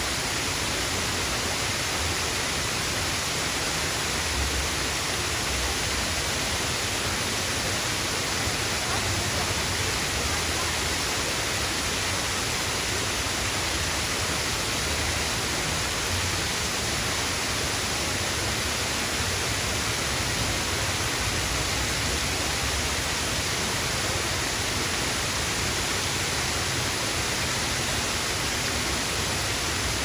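Small waterfall: water spilling over a rock ledge and splashing into a foaming pool below, a steady, even rush.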